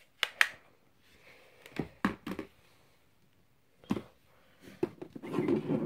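A few short, separate clicks and knocks of a Nokia slider phone being handled in the hand, with quiet gaps between them.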